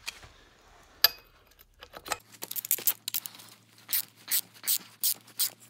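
Metal tool clicking while bolts are undone on a tractor's front axle housing, most likely a ratchet wrench: one sharp click about a second in, then from about two seconds in a run of regular clicks, about two or three a second.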